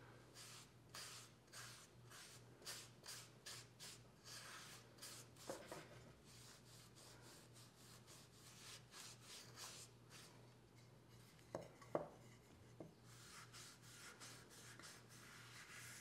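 Cloth rubbing oil into a wooden spoon: soft, repeated swishing strokes about two a second. There are a couple of brief knocks, the sharpest about three quarters of the way through.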